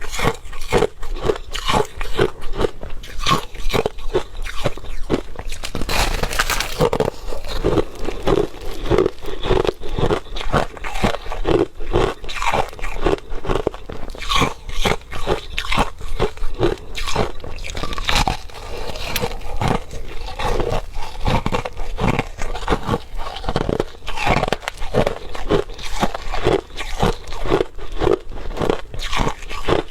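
Crushed ice being bitten and chewed close to the microphone: a dense run of crunches, several a second.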